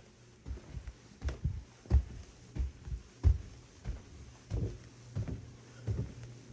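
Footsteps thudding on a floor, about one to two a second and uneven, over a steady low hum.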